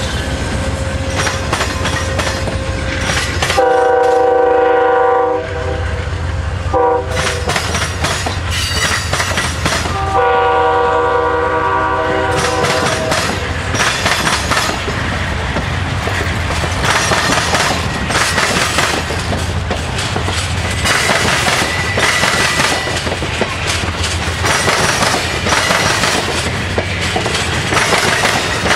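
Amtrak passenger train passing close by, its wheels clattering steadily over the rail joints. In the first half, the GE P42DC Genesis lead locomotive's horn sounds further off: a long blast, a short one and a long one, the end of a grade-crossing signal. A faint high wheel squeal comes about two-thirds of the way through.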